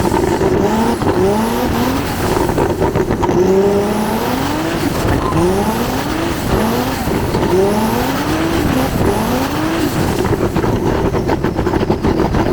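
Turbocharged BMW E46 M3 straight-six revving up and falling back again and again while drifting, about once a second, over steady tyre noise.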